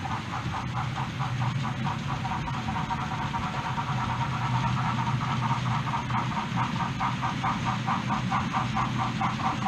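OO gauge model train running on the layout track, with a steady pulsing of about four or five beats a second over a low hum, gradually getting louder.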